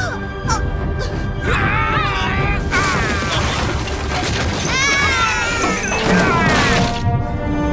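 Fight-scene soundtrack: loud dramatic music with repeated crashing impacts as bodies smash into mud walls, and several rising and falling wailing tones.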